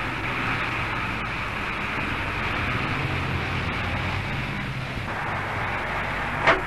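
JCB excavator's diesel engine running steadily as the machine works. Two sharp knocks come near the end.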